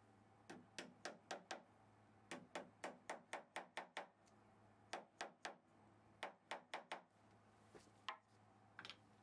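A plastic-faced fret hammer lightly tapping fret wire down into its slot in a guitar fingerboard. It comes in quick runs of sharp taps, about five a second, with short pauses between runs.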